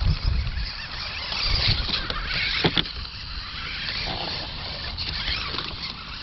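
Bwine C11 1:10 scale RC truck driving over wood-chip mulch and onto grass: its electric drive motors running and its tyres crunching through the chips, with one sharp knock about two and a half seconds in.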